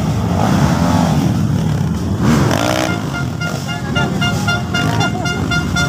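Enduro dirt bike engines revving as the bikes climb over a log obstacle, the pitch swelling up and down twice in the first half. Steady high tones run through the second half.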